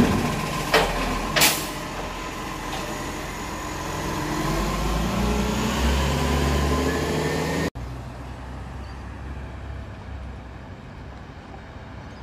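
Side-loading garbage truck setting an emptied wheelie bin back down with three sharp clunks in the first second and a half, over its running diesel engine. The engine then swells as the truck pulls away, until an abrupt cut about two-thirds of the way in leaves fainter distant engine and traffic sound.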